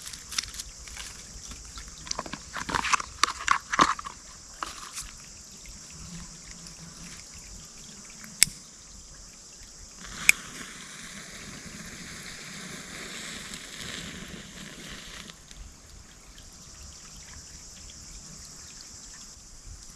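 Water pouring or trickling for about five seconds, starting right after a sharp click, preceded by a run of knocks and rustles.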